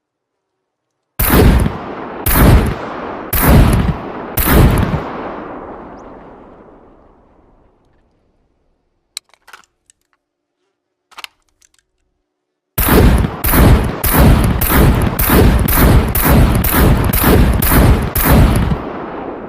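M82A1 .50-calibre semi-automatic rifle firing four shots about a second apart, each ringing out in a long echoing fade. A few light clicks follow, then a rapid string of about fifteen shots, roughly two or three a second.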